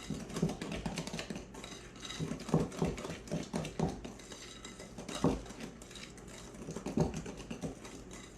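A utensil stirring cookie batter in a mixing bowl, with irregular knocks and clinks against the bowl as green food colouring is mixed in.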